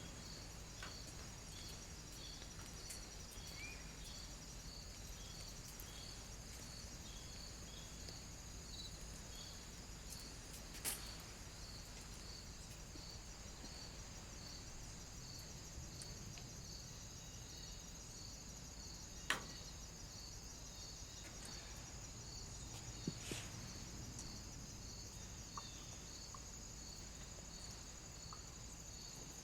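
Crickets chirping on a summer night, faint and steady, the chirps evenly spaced in a regular rhythm over a high insect hiss. A few sharp clicks stand out, the loudest a little past the middle.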